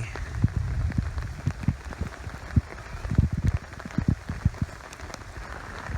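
Steady rain falling, with irregular dull thumps and taps scattered through it.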